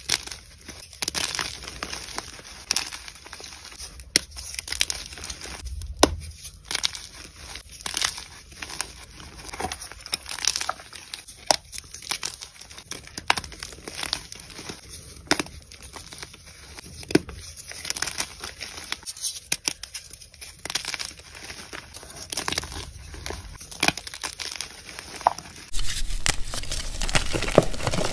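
Blocks of dyed gym chalk being crushed and crumbled by hand: many sharp, irregular crunches and crackles, several a second. Near the end the crumbling becomes louder and denser.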